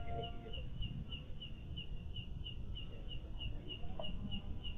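Night insect chirping steadily, a rapid even pulse of about six or seven high chirps a second.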